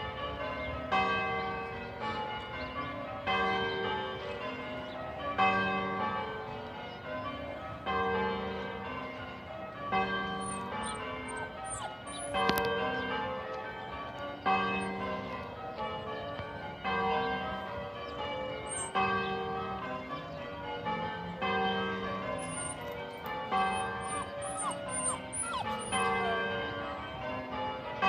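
Church bells ringing in a continuous, even succession of strikes, with a louder stroke about every two seconds as each round of the bells comes back to the start.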